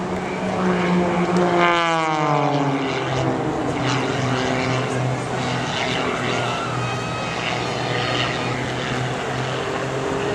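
Single-engine aerobatic propeller plane droning as it flies past, its pitch dropping about two seconds in, then a steady lower drone as it climbs away.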